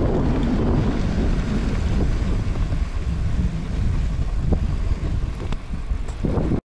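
Wind buffeting the microphone, a steady low rushing rumble, cutting off suddenly near the end.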